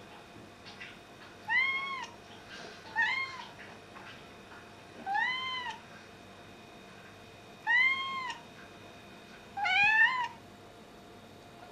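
Domestic cat meowing five times, short arching calls spaced a couple of seconds apart; the last one rises in pitch.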